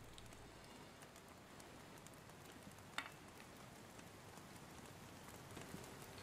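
Near silence: a faint crackling hiss with scattered small ticks, and one sharp click about three seconds in.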